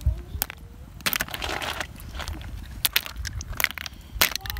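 Sharp clicks and knocks, irregular, about one or two a second, of large freshwater snail shells clacking against each other and against a wire basket as snails are handled and set down in it.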